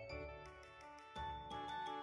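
Background music: a light instrumental tune with a soft, regular beat.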